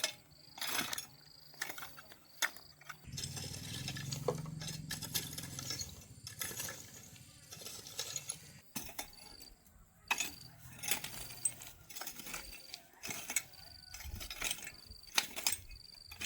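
Repeated light metallic clinks and knocks, like tools or hardware being handled during building work, with a low steady hum for a few seconds about three seconds in.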